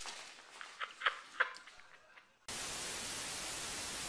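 A few short, sharp high sounds, then about two and a half seconds in, a sudden steady hiss of TV static, used as a screen-static transition between clips.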